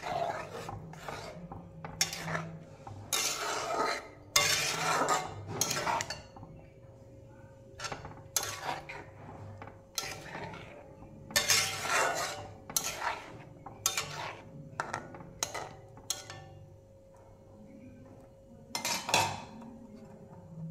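Metal ladle stirring a watery curry in a metal kadai, scraping and clinking against the pan in irregular strokes. There are short pauses about a third of the way in and again near the end, over a faint steady hum.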